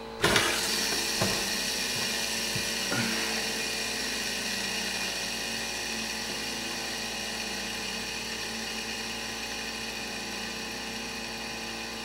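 Two fidget spinners with used ball bearings, one steel and one ceramic, flicked into spin on a wooden tabletop and whirring with a steady high whine made of several steady tones that slowly fades. A few light knocks come in the first three seconds, and the steel-bearing spinner comes to rest near the end.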